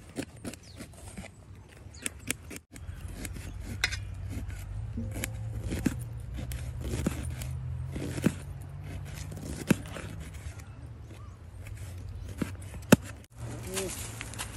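Kitchen knives chopping onions on a large steel plate: rapid, irregular knife strikes clicking against the metal, over a low steady rumble.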